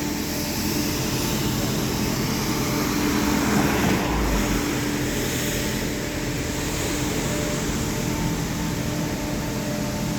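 A steady engine drone: a constant low hum with a few held tones over a noisy rush, and a brief deep rumble about four seconds in.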